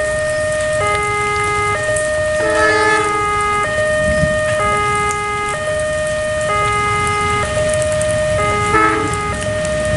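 Level crossing warning alarm sounding an electronic two-tone signal, switching between a higher and a lower tone about once a second, over a low rumble of heavy rain and the approaching train. Brief extra tones cut in about three seconds in and again near the end.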